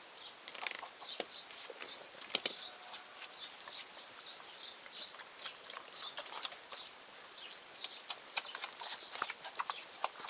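Gascon hound puppies eating together on a concrete floor: irregular wet smacking and crunching clicks of chewing, with small high chirps scattered throughout.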